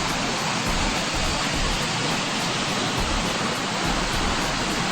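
A waterfall's steady, loud rush of falling water.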